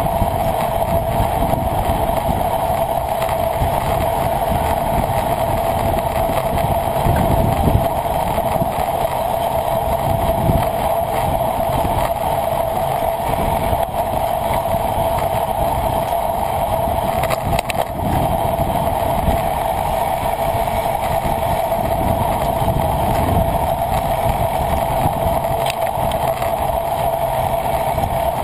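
Wind rumbling over the microphone of a camera riding along in a bicycle race, with a steady mid-pitched hum running underneath.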